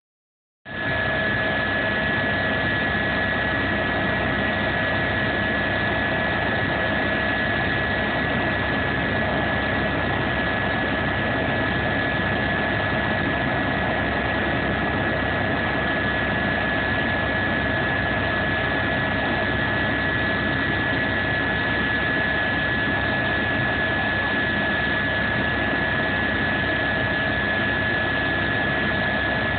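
Aircraft engine noise heard inside the cabin: a steady drone with a constant high whine, starting abruptly just under a second in.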